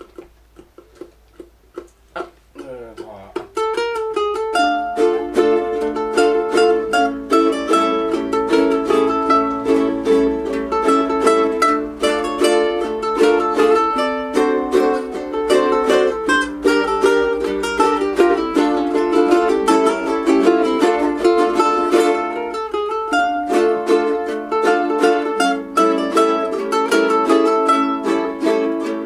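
A group of about seven ukuleles playing together. It opens with a few soft plucked notes, then about three and a half seconds in the whole group comes in strumming chords in a steady rhythm.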